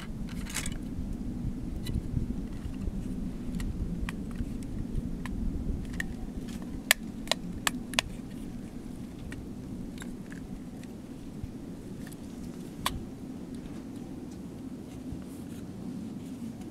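Small clicks and scrapes of the disposable camera's plastic body and parts being handled, with a quick run of four sharp clicks about seven seconds in and another near thirteen seconds, over a steady low rumble.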